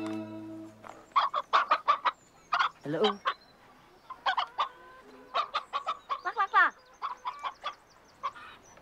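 Music fades out in the first second, then a string of short clucks and squawks follows in quick clusters, some sliding down in pitch.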